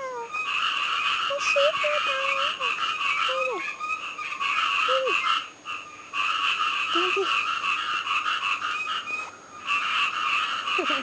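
A chorus of calling animals: a loud, dense, rapid pulsing that drops out briefly twice, with a few short sliding whistle-like tones beneath it.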